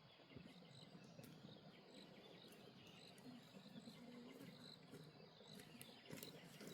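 Near silence: quiet outdoor ambience with faint, evenly repeated high chirping of insects.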